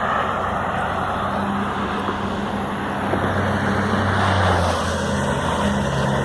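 Highway traffic passing, a steady rush of tyres and engines, with a vehicle's engine hum swelling past around the middle.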